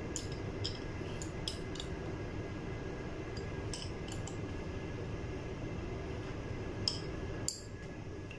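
Light metallic clicks and clinks of a small hand tool against the bolts of a forklift traction motor's electromagnetic brake as they are secured, about ten scattered taps bunched at the start and again near the end, over steady background noise.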